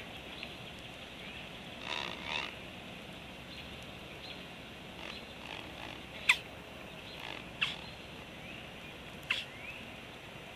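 Calls of young birds: a rough double call about two seconds in, then three sharp squeaks that drop steeply in pitch, over a steady high background chorus.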